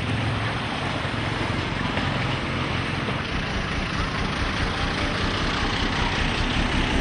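An engine running steadily under a continuous noisy rumble, with no distinct events.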